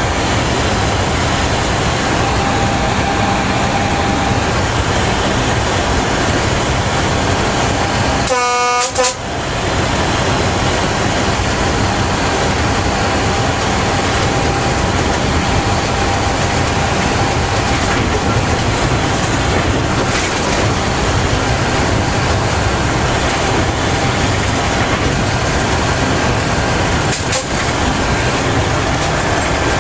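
Inside the cab of a Škoda-built BDZ class 44 electric locomotive running at about 120 km/h: steady track and running noise. About nine seconds in comes one short horn blast.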